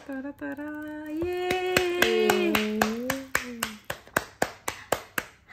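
Two women singing long held notes together in a little fanfare, over quick rhythmic hand claps at about four a second.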